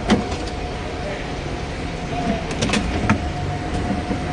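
Shop-floor background: a steady hum and murmur with faint distant voices, broken by a few sharp clicks and knocks, one just after the start and several more about halfway through.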